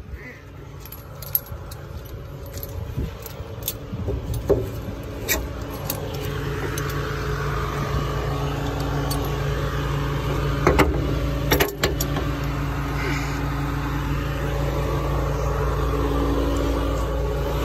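Steel lifting chains on a skip clinking and knocking as they are handled, over a Volvo skip lorry's diesel engine idling steadily and growing louder. Two loud metal clanks come about 11 and 12 seconds in.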